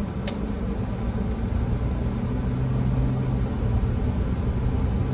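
A car's engine and tyres, heard from inside the cabin as it drives and turns on a snowy road: a steady low rumble, with one short click about a quarter second in.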